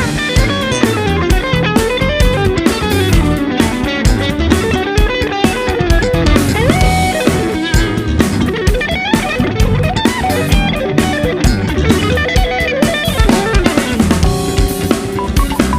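A band playing rock music: electric guitar lines with gliding, bending notes over drum kit and bass.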